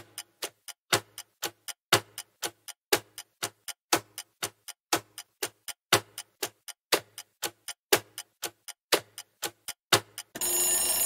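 Clock-tick sound effect of a countdown timer: about four ticks a second, the tick on each second louder. About ten seconds in it gives way to a bright ringing alarm-like sound lasting about a second as the count runs out.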